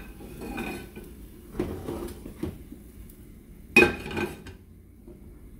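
Metal pots and pans being shifted about on a gas stove's grates: a few knocks and scrapes, then one loud metallic clank with a short ring nearly four seconds in.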